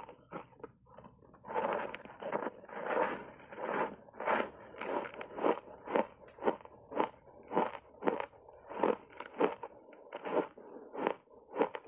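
Dry block ice, coated in matcha and milk powder, being bitten and chewed: dense crunching from big bites about a second and a half in, then steady chewing crunches at about two a second.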